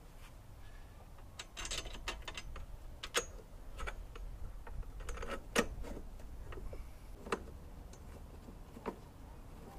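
Scattered metallic clicks, knocks and light rattles from a lawnmower's steel handlebar and control cable being handled and fitted. There is a short cluster of rattles a couple of seconds in, then single sharp clicks spaced a second or two apart, the loudest about halfway through.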